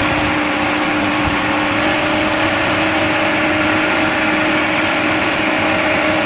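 Pentair IntelliFlo variable-speed pool pump running steadily at about 3,000 RPM, a constant motor hum with a steady whine over the rush of the pump.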